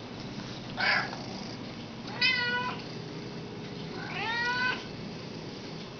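Domestic cat meowing three times, about one, two and four seconds in; the last meow is the longest and rises in pitch.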